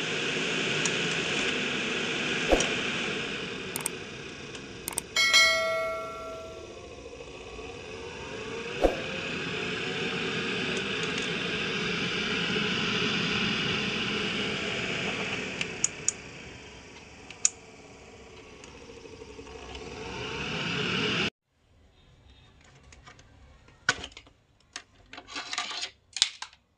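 12-volt DC cooling fan running in a homemade kitchen chimney hood: a steady rush of air that swells and fades, with a ringing metallic clink about five seconds in. It cuts off suddenly about 21 seconds in, and scattered clicks and rattles of handling follow.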